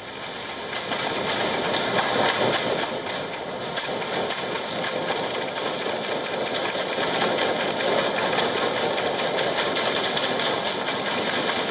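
A dense, continuous crackle of rapid gunfire, many shots packed together, from an exchange of fire between gunmen and troops. It holds at a steady level, and no single shot stands out.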